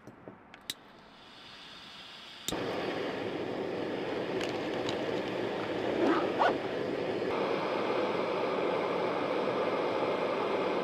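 Small backpacking canister stove: gas hisses faintly, then it lights with a click about two and a half seconds in and the burner runs with a steady hiss. A couple of metal clinks a little past halfway as the collapsible kettle is set on the burner.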